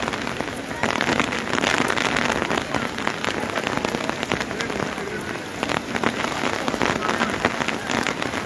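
Heavy rain pouring down on wet pavement: a dense, steady hiss, thick with the sharp splashes of single drops.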